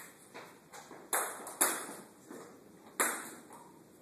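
Table tennis ball clicking off bats and the table in a short exchange: a few light ticks, then a sharp clack about a second in, another half a second later, and one more about a second and a half after that.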